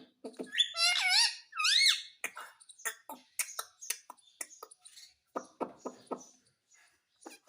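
Pet parrot calling: two loud whistles sliding up and down in pitch about a second in, followed by a run of short, clipped chattering sounds.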